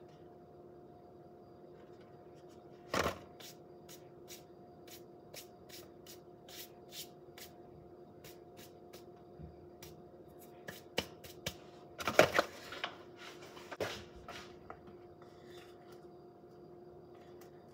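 Plastic peanut butter tub handled over a mixing bowl: a run of light clicks and taps as the peanut butter is scraped and tapped out by hand, with a sharper tap about three seconds in and a cluster of louder knocks about twelve seconds in. A faint steady hum underneath.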